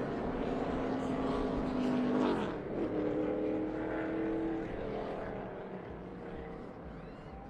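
A pack of NASCAR Cup Series stock cars at full throttle, their V8 engines running together in a layered drone. About two seconds in the pitch drops as cars sweep past, and the sound fades over the last couple of seconds.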